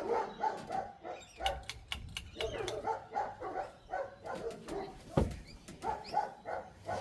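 Dogs barking over and over in quick runs of short barks, with a single low thump about five seconds in.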